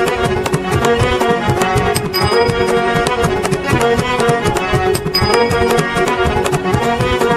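Background music: a quick, steady percussion beat under sustained melodic tones.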